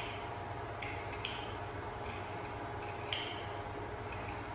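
Steady low electrical hum with about six short, crisp clicks or snips at irregular intervals.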